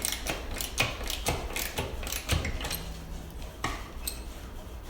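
Socket ratchet clicking in uneven strokes as a lag screw is tightened into the ceiling, over a low steady hum.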